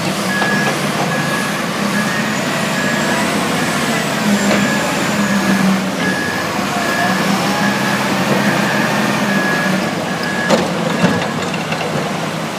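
Reversing alarm of an XIAJIN XJ976-32D stone-block forklift loader beeping in a steady string of short beeps over its running diesel engine as the machine backs away. The beeps stop about ten seconds in, followed by a couple of sharp knocks.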